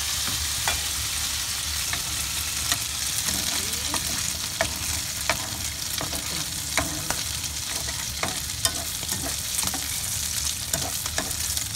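Oil sizzling steadily in a frying pan as a tuna omelette fries, with scattered sharp clicks through it.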